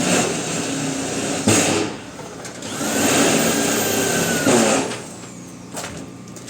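An electric motor run in two bursts of about two seconds each, the second with a whine that rises as it spins up and falls away as it stops.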